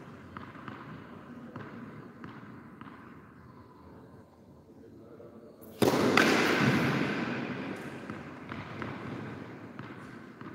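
A tennis ball is bounced several times on a hard court before a serve, each bounce a faint click. About six seconds in, a sudden loud crackling burst sets in and fades slowly over several seconds.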